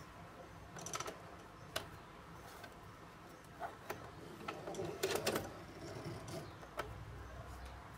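Singer Heavy Duty sewing machine turned slowly by a hand-crank wheel, stitching through a leather strap. The mechanism and needle give a few irregular clicks and knocks, with a denser cluster about five seconds in.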